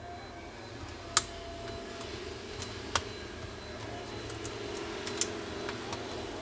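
A few sharp, isolated clicks and taps of laptop parts being handled during reassembly, the loudest about a second in, over a steady low hum.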